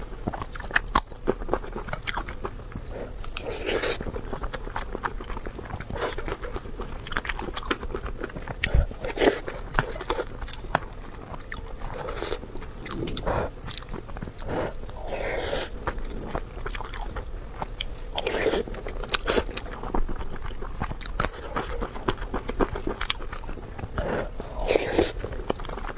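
Close-miked chewing and wet mouth sounds of a person eating soft tomato-and-egg rice with red-braised pork belly, in irregular bites. Sharp clicks and light scrapes of a metal spoon against a glass bowl come in between.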